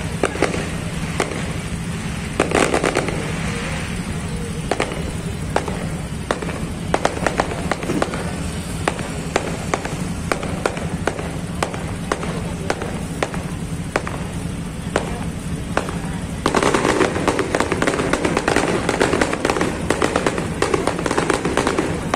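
Aerial fireworks bursting overhead: a continual run of sharp bangs and crackles over a steady low hum. They grow denser and louder about three-quarters of the way through.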